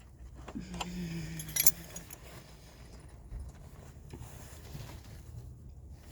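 Metal hand tools clinking as a wrench is picked out, with a few sharp clinks in the first two seconds, then only a faint low background.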